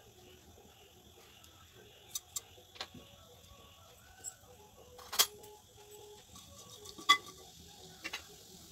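Spice seeds crackling in hot oil in a kadai: a scattering of sharp, separate pops over a faint background hiss, the loudest two about five and seven seconds in.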